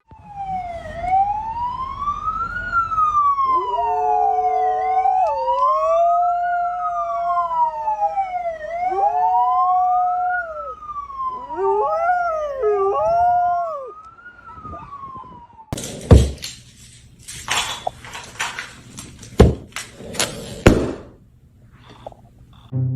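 A siren wailing, its pitch rising and falling slowly, with a dog howling along in long held notes from about 3 to 13 seconds in. From about 16 seconds in come several loud sharp knocks.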